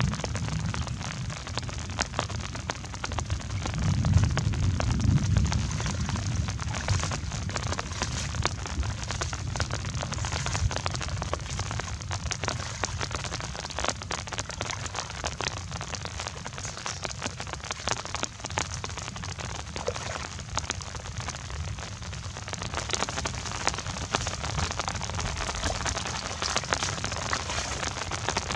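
Steady rain falling on a flooded field and its open water: a dense, even hiss of countless small drop hits. Under it is a low rumble, strongest about four to six seconds in.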